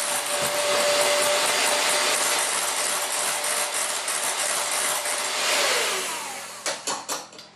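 Electric hand mixer running steadily, its beaters whipping cake batter in a glass bowl. About six seconds in it is switched off and the motor winds down with a falling whine, followed by a few sharp knocks.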